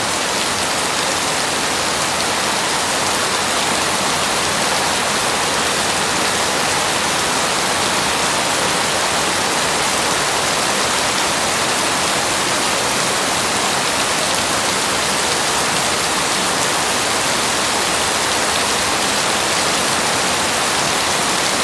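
Heavy, steady rain pouring down as a dense, even hiss, with no thunder heard.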